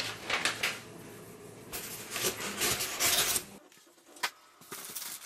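Paper and cardboard packaging being handled, rubbing and rustling in several bursts, then a brief lull with a single knock near the end.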